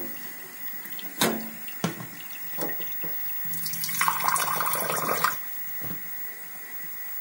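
A few sharp knocks of a glass and a metal sieve against a stainless-steel sink, then a kitchen tap running for about two seconds, its stream splashing into a glass in the sink.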